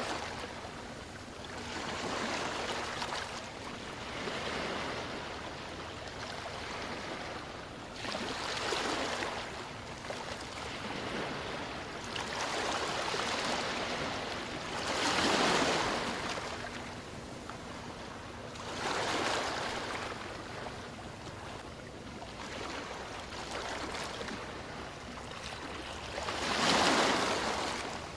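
Sea waves washing in, a soft hiss that swells and fades every few seconds.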